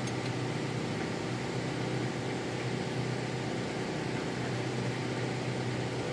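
A machine running steadily, a constant low hum under an even noise.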